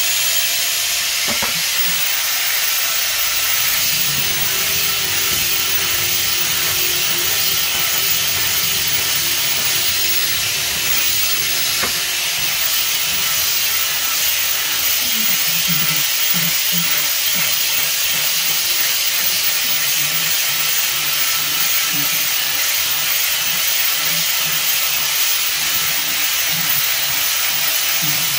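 A loud, steady hiss that does not change, with faint muffled voices underneath.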